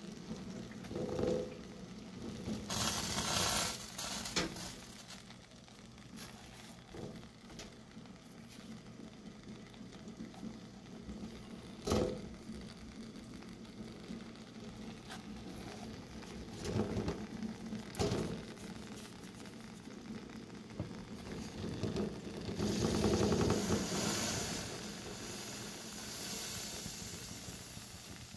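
Sweet potatoes sizzling and crackling in a dry stone pot over low heat, cooked without water. A steady faint hiss with two louder spells of hiss and a few sharp clicks.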